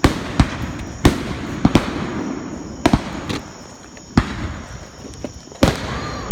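Fireworks display: firework bursts going off as a string of sharp bangs at irregular intervals, about nine in six seconds, some in quick pairs, over a steady low rumble.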